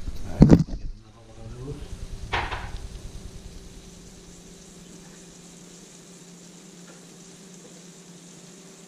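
Butter and white-wine reduction sizzling in a skillet on a turned-down burner, easing off after a few seconds to a low steady hiss with a faint hum. A couple of knocks in the first seconds.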